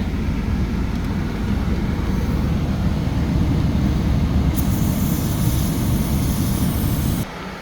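Aerosol spray can hissing in one long burst from a little past halfway, over the steady rumble of the motorhome's idling engine and dash air-conditioning fan running on max.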